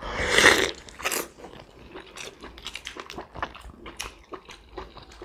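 Jumbo steamed pork momos being bitten into and eaten: a loud sucking sound at the start as the juice inside is drawn out, then wet chewing and lip-smacking made of many small clicks.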